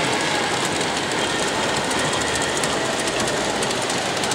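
Model trains running on a model railway layout: a steady rolling rumble with light, irregular clicking of small wheels over the rail joints.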